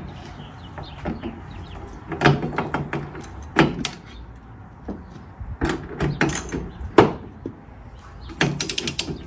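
Click-type torque wrench being worked on the bolts of a spare tire carrier: short metallic ratcheting clicks and clunks about a second apart, with a quick run of clicks near the end.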